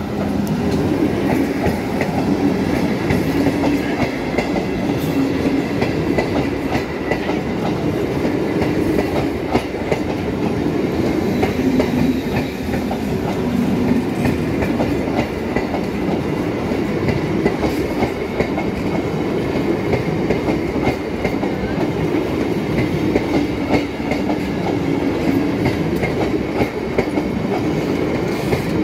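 A MEMU passenger train's coaches rolling past close by: a steady, loud rumble of wheels on rails with a continuous clickety-clack of wheels over the rail joints.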